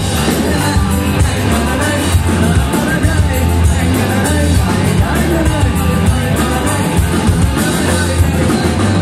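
Live rock band playing loud, with electric guitars, bass guitar and drums, and a singer's voice over them.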